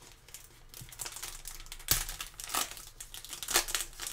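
Foil trading-card pack crinkling and crackling as gloved hands grip the top and work to tear it open. A sharp snap about two seconds in.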